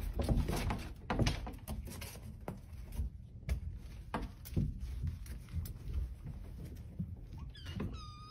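Irregular soft knocks, taps and clicks as an interior door is opened and kittens push out through the gap. A kitten starts meowing at the very end.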